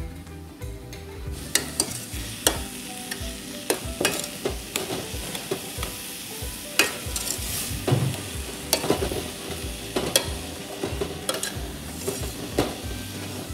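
Metal spoon stirring and scraping wild berries and sugar in a metal pot, with irregular clinks of the spoon against the pot's sides and bottom as jam is started.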